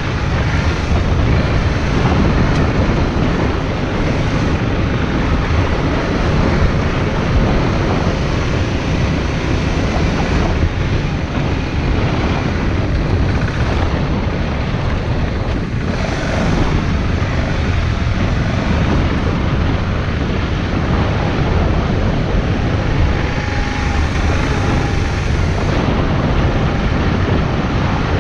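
Wind buffeting the microphone of a bicycle being ridden: a loud, steady rush with a deep rumble.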